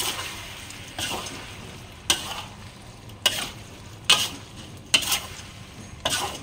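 Metal spatula scraping and turning a thick mushroom filling in a stainless steel wok, about one scrape a second, seven in all, over a low steady sizzle.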